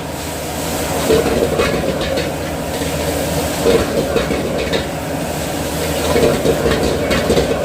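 Steady roar of a commercial kitchen range while jjamppong is cooked, with scattered clinks and scrapes of a ladle against the wok.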